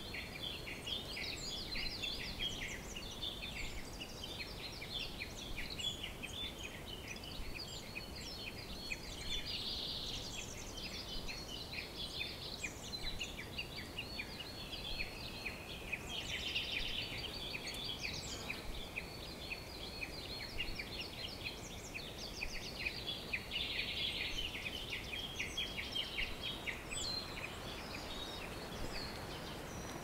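Rainforest bird chorus: many birds chirping and twittering at once in a dense, unbroken chatter, over a steady background hiss.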